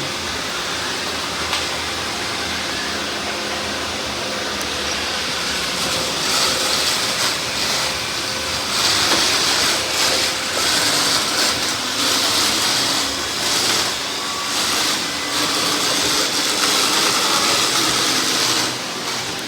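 Robot vacuum cleaner running, a steady motor and brush noise. From about six seconds in, louder high hissing stretches come and go.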